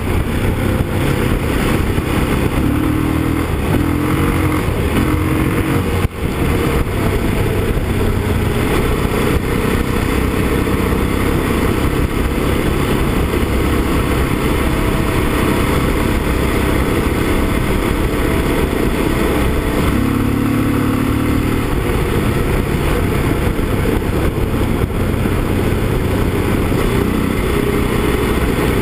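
Yamaha XT660Z Ténéré's single-cylinder engine running steadily under way on a gravel road, mixed with a continuous rush of wind and road noise. The loudness dips briefly about six seconds in.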